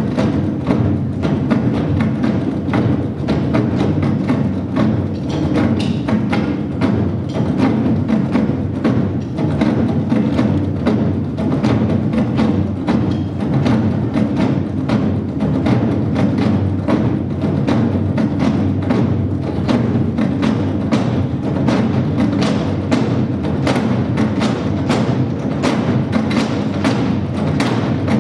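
Nanta drum ensemble beating drums with sticks in a fast, driving, continuous rhythm, with sharp stick clicks over deep drum strokes.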